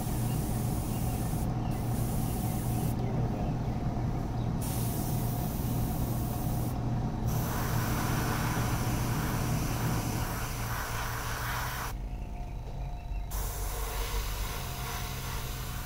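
Airbrush compressor humming steadily while the airbrush hisses, spraying paint. The hiss drops out briefly a few times, about three seconds in and again near the end, as the trigger is let off.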